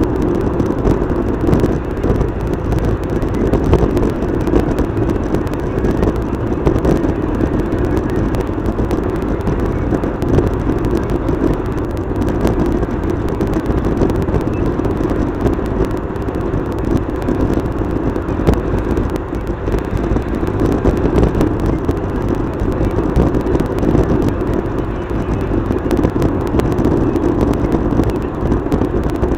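Steady road and engine noise of a car driving on a highway, heard from inside the cabin, with no change or distinct events.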